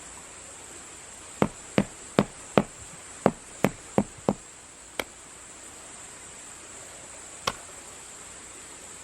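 Sharp knocks during building work: eight quick strikes about two or three a second, then two single knocks a little later. A steady high-pitched hiss runs underneath.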